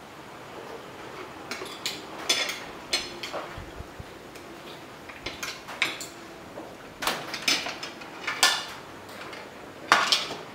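Fork and spoon clinking and scraping against a plate while eating, in irregular short strokes, the loudest near the end.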